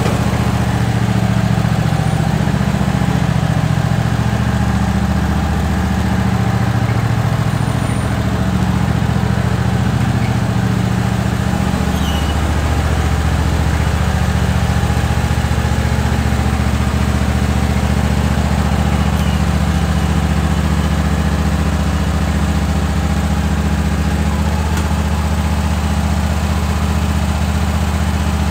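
Black garden tractor's small engine running steadily as it is driven slowly, its note changing about twelve seconds in.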